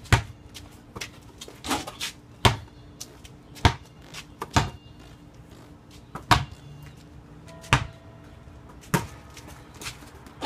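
Basketball bouncing and hitting the hoop: sharp single thuds, about eight of them, one every second or two.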